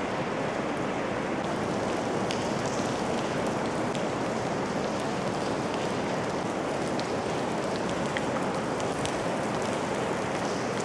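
Steady rain falling on and through the broken roof of a large derelict industrial hall, with scattered single drops ticking close by.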